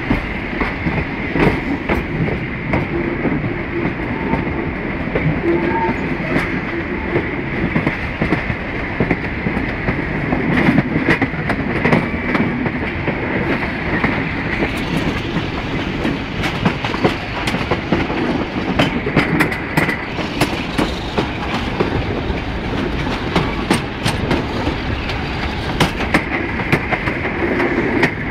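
Diesel-hauled passenger train heard from an open coach window as it pulls away behind a Class 47 locomotive: steady running noise with an irregular clatter of wheels over rail joints and pointwork, and the Class 47's Sulzer diesel engine working under power ahead.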